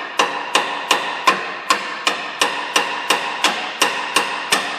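Hammer blows on a rusted steel rear suspension knuckle, tapping the upper control arm up out of the knuckle's spread pinch. The blows come in an even rhythm of about three a second, each with a short metallic ring.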